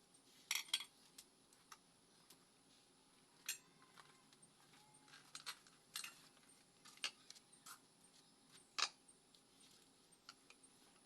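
Scattered light clicks and clinks from small hard objects being handled, about a dozen at irregular intervals, with near silence between them.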